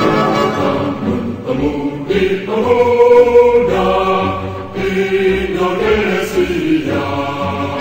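Background music: voices in chorus holding long chords that change every second or so.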